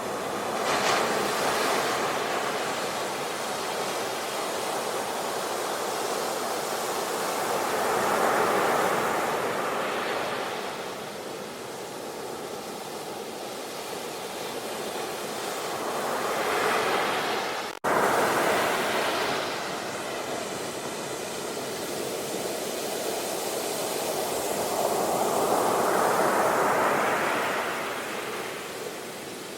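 Ocean waves breaking and washing up in slow surges, each swelling and ebbing over several seconds. There is a brief dropout in the sound a little past halfway.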